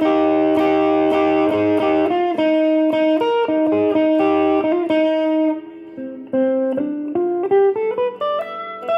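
Electric guitar played through a Valeton Dapper Amp Mini pedal into a Fender Champion 20 amp. Quickly repeated picked notes ring over sustained tones for about five seconds, then after a brief quieter moment a rising run of single notes climbs to a held note near the end.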